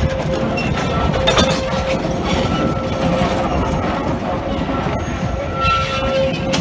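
Loaded sugar-cane railcars rolling slowly past on the rails: a steady rumble of wheels and cars, with a thin steady squeal over it and a sharp click about a second and a half in.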